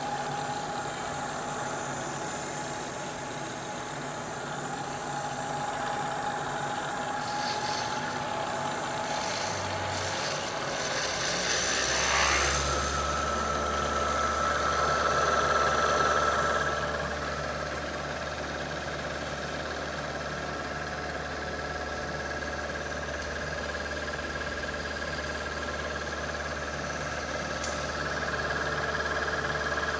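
Southwestern TRAK DPM CNC bed mill running, a steady machine hum with a thin whine. About twelve seconds in the sound shifts: a deeper hum and a higher steady whine come in and hold.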